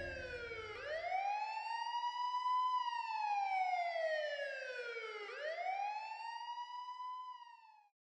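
Police siren in a slow wail, its pitch sweeping down and up twice, with the last of a music score dying away about a second in. The siren fades and cuts off near the end.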